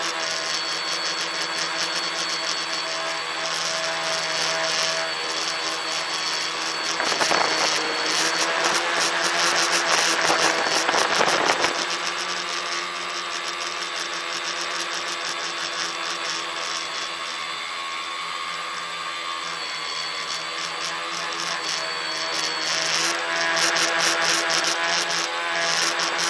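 Tricopter's electric motors and propellers buzzing steadily, picked up close by the microphone on board. The buzz grows louder for a few seconds about a third of the way in.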